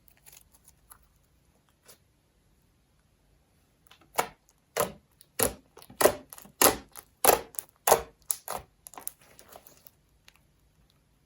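Slime being mixed and pressed by hand, with air pockets popping. A few faint clicks come first; about four seconds in, a run of loud pops starts at roughly one every 0.6 s, then turns into lighter crackling near the end.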